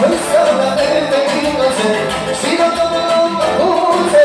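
Live band music played through PA speakers: a man singing into a microphone over accordion and saxophone.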